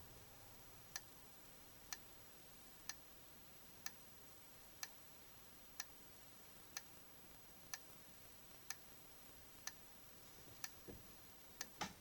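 Wheelock RSS remote strobe flashing about once a second, each flash heard as a faint sharp tick, about ten in all. A few soft knocks near the end.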